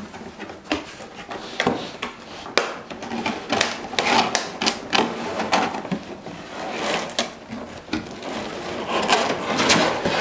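Cardboard box and a clear plastic packing tray wrapped in bubble wrap being handled and slid out of the box: rustling and scraping with many sharp clicks and crinkles.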